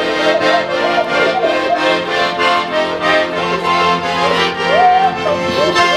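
Piano accordion playing a tune: a melody moving over steadily held chords, with a regular pulse.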